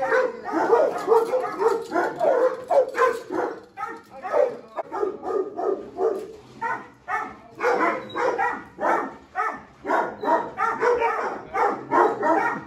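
Several dogs barking and yipping rapidly, their barks overlapping, with brief lulls.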